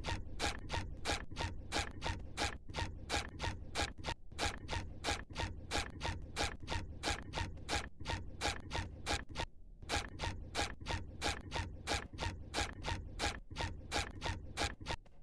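Rapid, regular ratchet-like mechanical clicking, about four clicks a second, with two short breaks.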